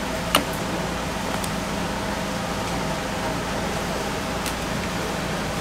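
Steady machine hum and hiss of a restaurant kitchen, with one sharp click shortly after the start.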